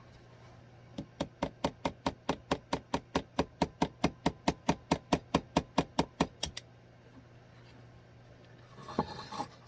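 Hammer tapping a nail into a wooden birdhouse board: a quick, even run of about five taps a second, starting about a second in and stopping after some five seconds. The strikes are too light to drive the nail fully through the wood.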